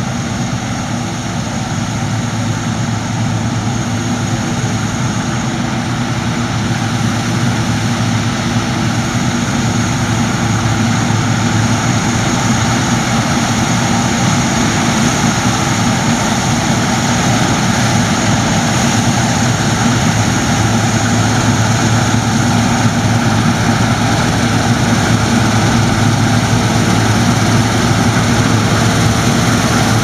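Claas Lexion combine harvesters cutting wheat: engines and threshing gear run in a steady drone, with a thin high whine. The drone grows gradually louder as the machines draw closer.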